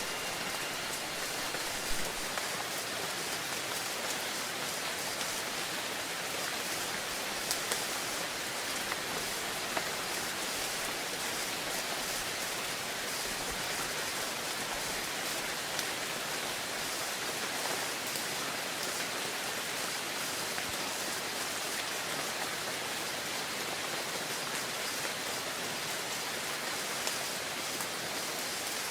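Steady rain falling, an even hiss with scattered sharper drop hits. The ringing of a wind chime dies away in the first second or two.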